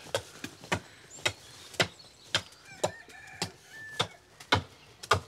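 Axe chopping a section of ash log on a wooden chopping block, sharp strikes repeated about twice a second, rough-shaping the blank for a turned pulley.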